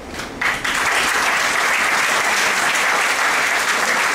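Audience applauding, breaking out suddenly about half a second in and continuing steadily.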